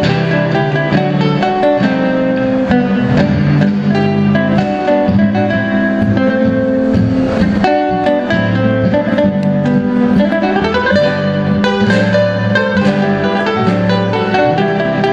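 Three acoustic guitars playing a tango together: plucked melody and chords over a moving bass line, with a rising run of notes about two-thirds of the way through.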